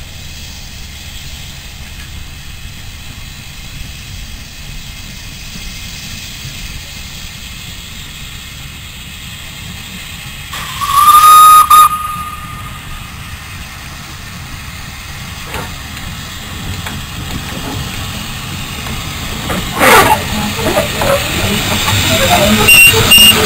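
Narrow-gauge steam locomotive, Ffestiniog Railway No. 4 'Palmerston', approaching: its whistle sounds once for about a second, about eleven seconds in. A sharp burst follows about twenty seconds in, and the engine's steam and running gear grow louder as it comes close.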